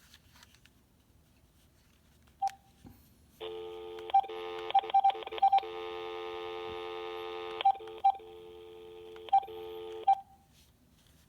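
VTech cordless phone handset beeping as its keys are pressed: a single key beep, then a steady electronic tone from the handset's small speaker for about seven seconds, dropping in level about two-thirds of the way through. Short single-pitch key beeps land on it in quick runs, several within a second, then a few spaced out. The tone cuts off with the last beep.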